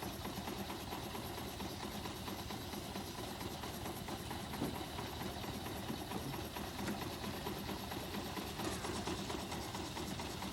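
Steam-engine-driven sawmill running steadily, a constant mechanical rattle and rumble.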